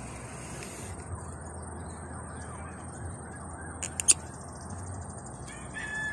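Outdoor ambience with faint bird calls over steady background noise, a single sharp click about four seconds in, and a short whistled call near the end.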